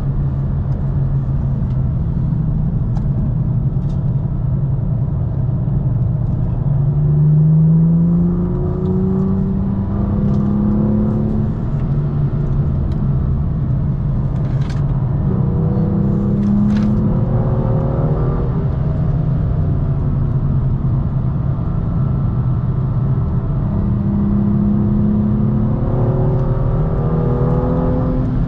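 BMW M2 (F87) turbocharged straight-six, heard onboard and driven hard. The engine note climbs in pitch several times and drops back at each gear change.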